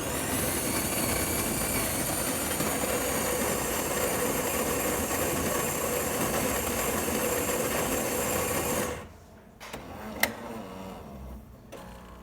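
Jura Impressa Z6's built-in grinder grinding coffee beans at the start of a brew cycle, a steady motor noise for about nine seconds that then stops suddenly. A quieter mechanical sound with a sharp click follows.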